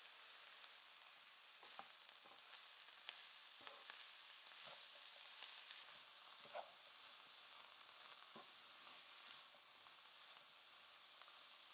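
Shredded cabbage, carrot and chickpeas sizzling quietly in a nonstick frying pan. A wooden spatula stirs through them with soft, irregular knocks and scrapes, mostly in the first two-thirds.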